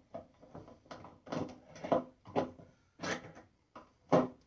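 Irregular short knocks and clunks as a metal soft-close lid-stay hinge is handled and fitted against a wooden box, with the sharpest knock near the end.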